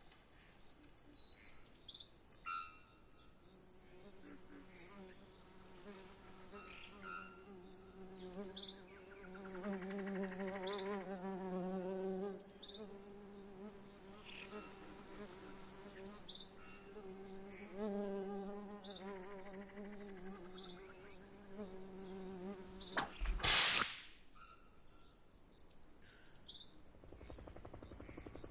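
Insect buzzing: a fly-like buzz that swells louder twice and fades. Over it run a steady high-pitched whine and short chirps every second or two. A single sharp crack comes about 23 seconds in.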